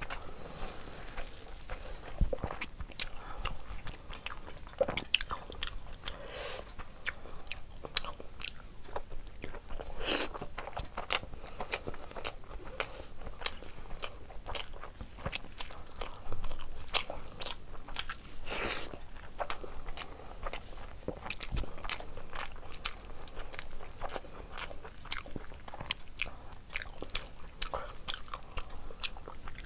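Close-miked chewing and wet mouth sounds of a person eating rice and curry by hand, with many sharp, wet clicks and smacks throughout.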